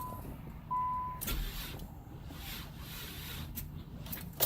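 Two short electronic beeps at one steady pitch, the second about a second in, followed by a single knock and faint handling noise; the beeps come as a start attempt fails.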